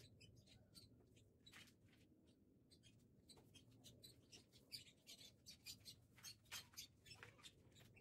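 Faint, irregular crackling and rustling of leaves and twigs as plants and weeds are pulled and handled by hand in a garden bed.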